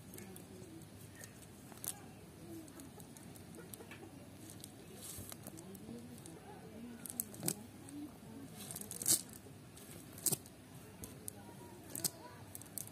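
A chicken clucking on and off in low, soft calls, with scattered sharp clicks and rustles from a cast net being handled and gathered. The clicks are denser in the second half, the loudest about nine seconds in.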